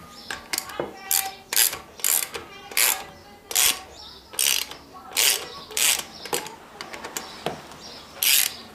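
Hand ratchet wrench being worked back and forth on a bolt: short runs of rapid clicks on each return stroke, a dozen or so of them, one every half second to a second.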